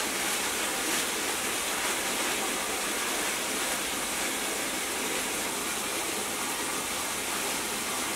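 A steady, unbroken rushing hiss.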